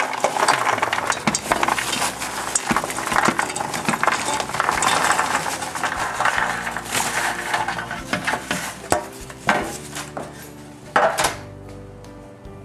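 Fried struffoli dough balls tumbling off a metal baking tray into a stainless steel pot, a dense rattling clatter of the balls and the tray edge against the metal. Near the end it thins to a few separate knocks.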